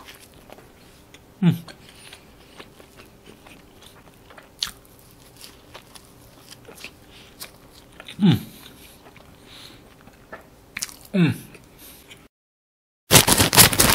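A person biting and chewing a soft white-bread sandwich close to the microphone, with faint wet mouth sounds. Three short falling-pitch voice sounds come from the eater, about a second and a half in, then around eight and eleven seconds. Near the end a brief dead silence is followed by a sudden loud burst of noise.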